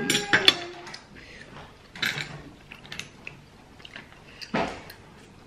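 Clams in their shells being picked over by hand on a ceramic plate: scattered small clicks of shell against shell and plate, with a sharper click about half a second in and a fuller knock near the end.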